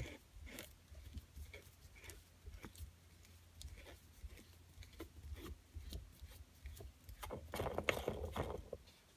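Hands twisting the stock shift knob of a 2013 Ford Mustang counterclockwise off the shift lever: faint scattered clicks and rubbing, growing busier near the end as it comes loose.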